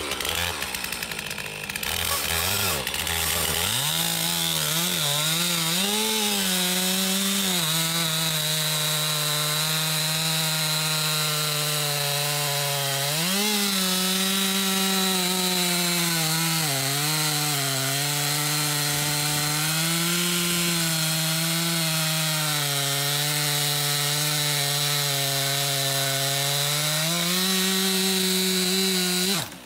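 Stihl two-stroke chainsaw running at full throttle while cutting through a large log. Its pitch repeatedly sags as the chain bogs down in the wood and rises again as it frees up. The sound stops abruptly near the end.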